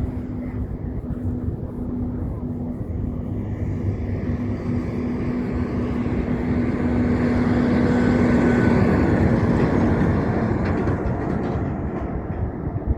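Heavy truck driving past: engine and tyre noise swell, reach their loudest about eight or nine seconds in, then fade as it moves away.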